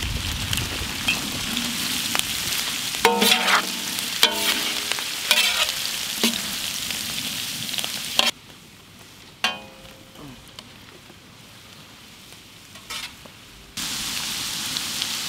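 Onions, green chillies and curry leaves sizzling in hot coconut oil in a pan, stirred, with a few metal scrapes against the pan. The sizzle cuts out abruptly just past halfway and comes back suddenly near the end.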